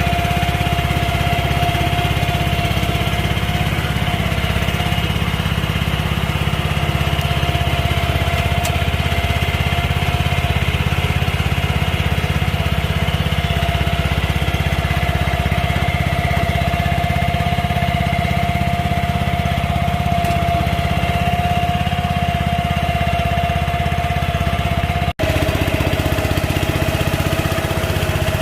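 Small engine of a tracked farm transporter (crawler power carrier) running steadily at a constant speed, with a steady high whine over the engine's low drone. The sound breaks off for an instant about 25 seconds in and resumes unchanged.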